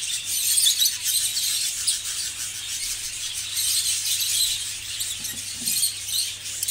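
Many budgerigars chattering together in a breeding aviary: a constant, many-voiced high-pitched chirping and twittering.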